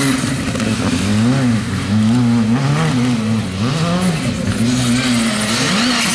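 Skoda Fabia R5 rally car's turbocharged four-cylinder engine driven hard round a tight roundabout, revving up and down in short bursts of throttle, its pitch rising and falling several times.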